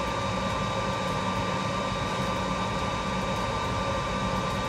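Steady fan noise with a constant high whine and a low hum, unchanging throughout.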